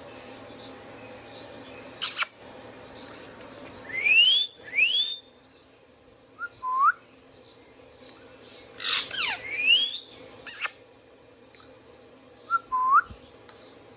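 Indian ringneck parrot calling: sharp short screeches about two seconds in and again near ten seconds, between clear rising whistles and lower hooked whistle notes that come back every few seconds.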